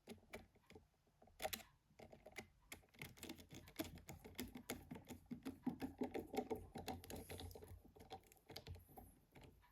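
Faint, quick small clicks and ticks of a precision screwdriver and plastic phone parts as a tiny screw is driven into a Nokia N73's housing, thickest in the middle of the stretch and thinning toward the end.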